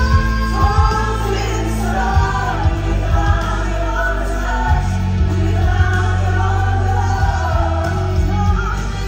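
Live show music: a woman singing long, gliding notes over a backing track with a heavy, steady bass.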